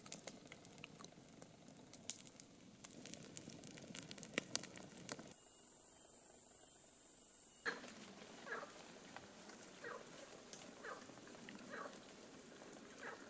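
Wood campfire crackling, with sharp pops and snaps that peak near the end of its five seconds. Then a steady high-pitched insect drone for about two seconds, and after it a quieter stretch with faint short chirps less than a second apart.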